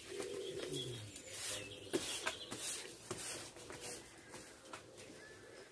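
Long-handled hedge shears snipping through conifer branches: several sharp snips with rustling foliage, the loudest about two seconds in.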